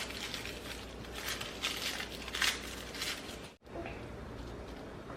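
Dried nori seaweed sheets being torn up by hand: a run of short, crisp crackling rips, several a second, that stop abruptly a little past halfway, leaving only faint room tone.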